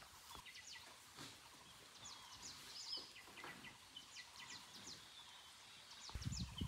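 Faint birds chirping: quick high notes repeated in small clusters. A low rumbling noise comes in near the end.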